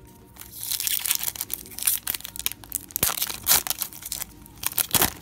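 Foil wrapper of a Pokémon card booster pack crinkling and tearing as it is ripped open. It is a dense run of crackles, with sharper snaps near the middle and near the end.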